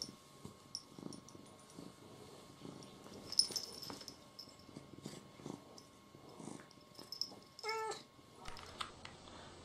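A cat purring faintly, with one short meow about eight seconds in.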